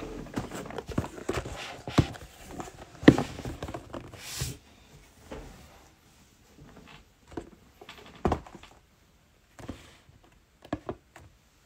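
Cardboard trading-card booster boxes being handled and set down on a table: a run of knocks and thumps, densest in the first few seconds. There is a brief sliding hiss about four seconds in.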